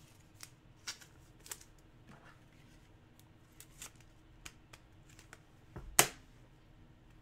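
Faint scattered clicks and light rustles of trading cards and plastic card holders being handled on a wooden table, over a faint steady hum, with one sharper tap about six seconds in.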